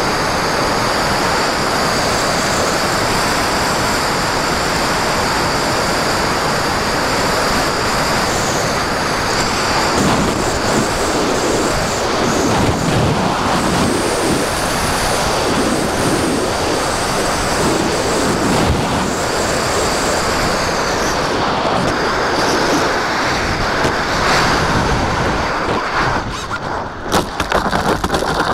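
Rushing air and a steady high whine from a radio-controlled model glider in flight, picked up by its onboard camera, with wind buffeting the microphone. Near the end the plane touches down and scrapes and bumps across gravel.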